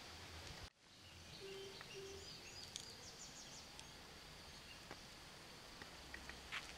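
Faint outdoor ambience: a steady low hiss with a few brief, faint high chirps, broken by a short dropout about a second in.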